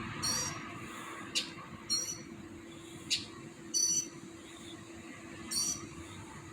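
Unidentified night-calling birds: four short, high, squawky calls about every two seconds, with two quick sharp chirps in between, as two birds call back and forth.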